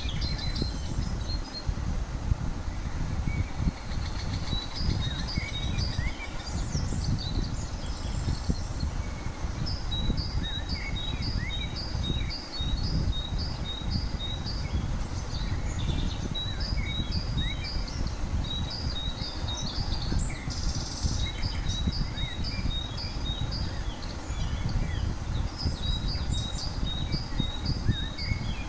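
Small birds chirping, one repeating a short high call about twice a second in long runs, over a steady low rumbling background noise.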